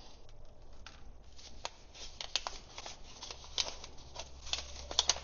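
Coin packaging handled and opened by hand: irregular small clicks and crinkles, sparse at first and busier from about two seconds in.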